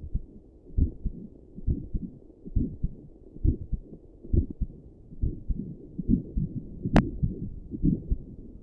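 A person's heartbeat heard through a stethoscope and a doppler together: steady low thumps at about 70 beats a minute. One sharp click about seven seconds in.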